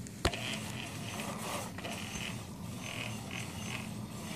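Spinning front wheel's bent disc brake rotor rubbing against the caliper in a series of short, uneven scrapes, after one sharp click near the start. The rub is the sign of a disc that is bent and out of line with the stationary side of the caliper.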